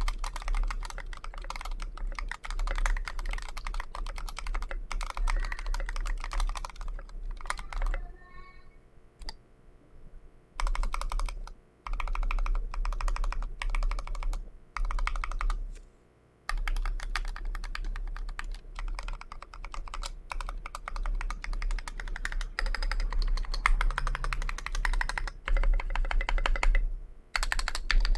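Mechanical keyboard (KBDfans Pebble with JWK FFF switches and SA-profile Ocean Dolch keycaps) being typed on fast, in dense runs of keystrokes. There is a pause of about two seconds roughly a third of the way in and a few brief breaks later.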